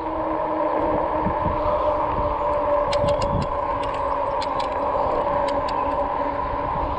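Riding noise from a RadRover electric fat-tyre bike: a steady hum with a constant whine over a low rumble, with a few knocks and a scatter of light clicks and rattles in the middle as the bike goes over bumps.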